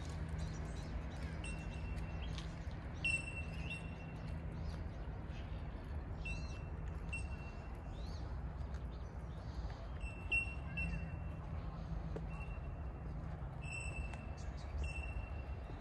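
Birds calling in a park: short, clear, high notes on one steady pitch, repeated every second or so, with a few sharper chirps among them. A steady low background rumble runs underneath.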